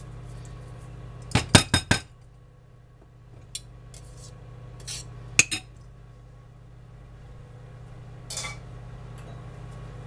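Metal grater and utensils clinking against a ceramic bowl: a quick run of four sharp clinks about a second and a half in, then a few single clinks, over a steady low hum.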